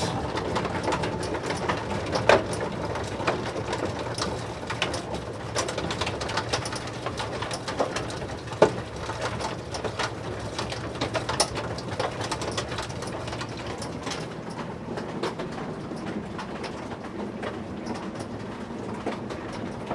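Hail and rain falling, a dense crackle of small impacts with a few sharper single hits, thinning slightly in the second half as the storm eases.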